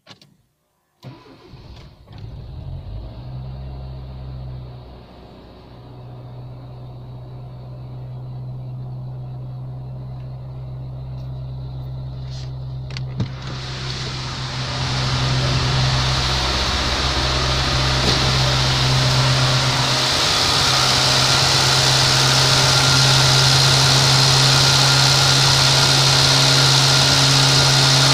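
Renault Mégane 1.6-litre 16-valve four-cylinder petrol engine starting about a second in and settling into a steady idle. It is the first start after a cylinder-head rebuild with new valves, and the engine is running a little fast on its cold-start enrichment. About halfway through the sound gets louder and brighter as it is heard from the open engine bay rather than the cabin.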